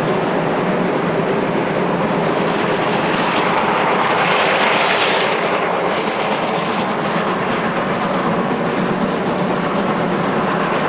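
Steam train working, a loud continuous rush of exhaust and running gear, with a brighter hiss swelling briefly about four to five seconds in.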